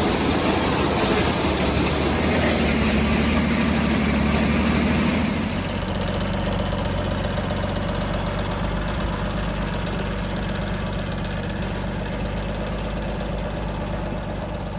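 Farmall 460 tractor engine running steadily, together with the All-Crop 72 combine's machinery. About five and a half seconds in, the louder, higher-pitched noise drops away and the engine runs on more quietly.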